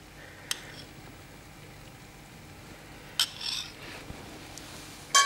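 Light knocks and scrapes of dishes being set down, ending with a sharp crockery clink that rings briefly.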